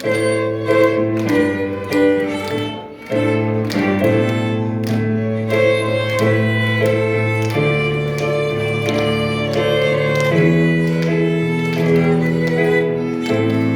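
Live small ensemble playing: a violin melody over low sustained cello notes, with regular note attacks throughout.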